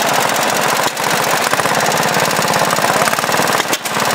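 1957 Mead Mighty Mouse mini dozer's air-cooled Wisconsin engine running loud with a rapid, even firing beat, dipping briefly twice.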